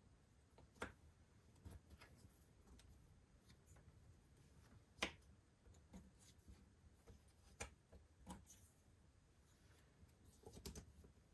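Cardboard jigsaw puzzle pieces being handled and pressed into place on a table: scattered faint clicks and taps, the sharpest about five seconds in, with a quick run of clicks near the end.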